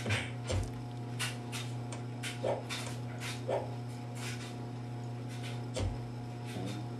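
Sound effects of a stick-figure Flash animation playing through computer speakers: scattered sharp clicks and taps, two short squeaky sounds about two and a half and three and a half seconds in, and a steady low hum underneath.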